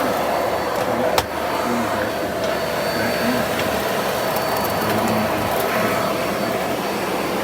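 Vacuum cleaner running steadily, with a sharp click about a second in.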